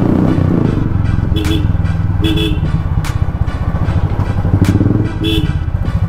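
Royal Enfield single-cylinder motorcycle engine running at low speed with its steady thumping exhaust beat. A horn gives three short beeps over it.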